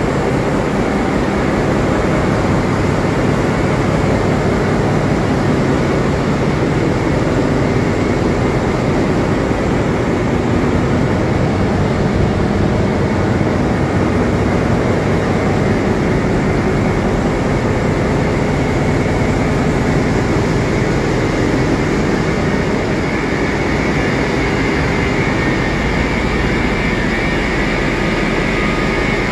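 Steady, loud din of a ship's engine room: running machinery such as diesel generators, pumps and ventilation blending into one even roar.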